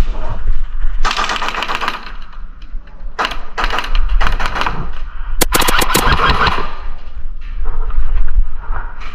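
Airsoft guns firing several rapid automatic bursts, the sharpest and loudest about five and a half seconds in.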